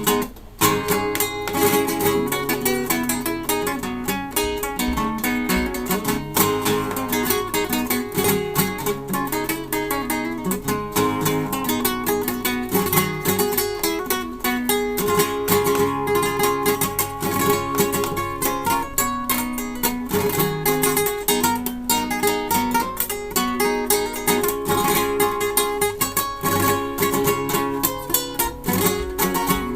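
Classical guitar playing a piece of quick plucked notes, with a brief break just after the start before the playing carries on.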